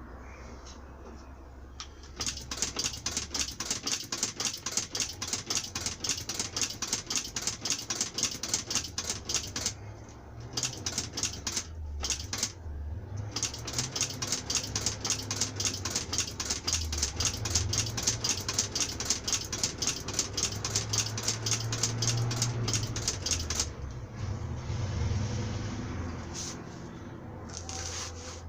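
Sewing machine stitching in fast runs of even clicks, stopping briefly twice and halting near the end.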